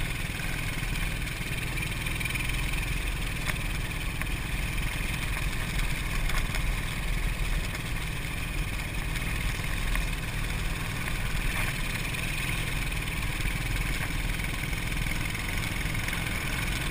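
ATV engine running steadily at an even speed while riding along a dirt trail, with no change in pitch.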